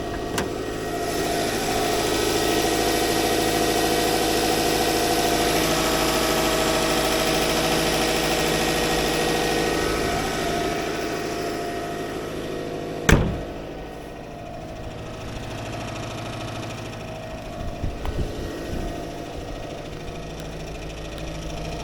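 Subaru Legacy B4 (BL5) flat-four engine idling with an abnormal noise: a loud, steady added whirring rattle over the engine for the first dozen seconds. There is a single sharp knock about 13 seconds in, after which the noise eases and the engine runs quieter. The cause of the noise is not yet known.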